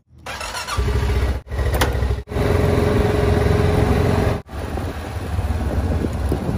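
Honda ATV engine running as the quad is ridden, with a steady whine over it for a couple of seconds in the middle. The sound drops out suddenly and briefly three times.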